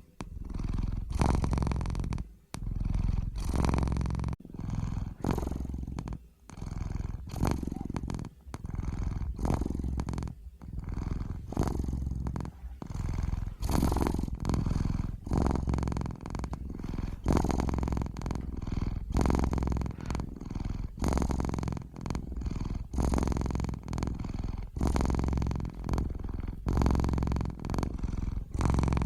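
Domestic cat purring close up, in a steady rhythm of stretches about a second long, one with each breath in and out.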